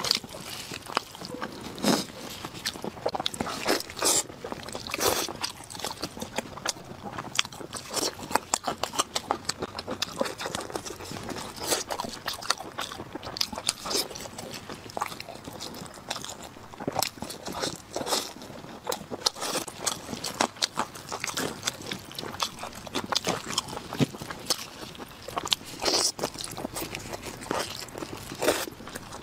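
Close-miked eating: wet chewing and biting with frequent sharp clicks and small crunches, as sauce-glazed roast meat is torn apart by gloved hands and eaten.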